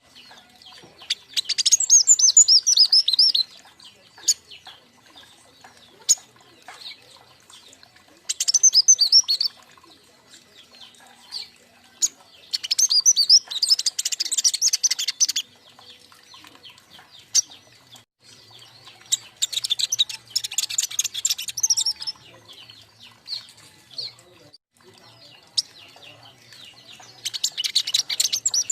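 Several juvenile king konin songbirds singing: bursts of rapid, high-pitched chirping song a few seconds long, about five times, with quieter scattered chirps and calls between them.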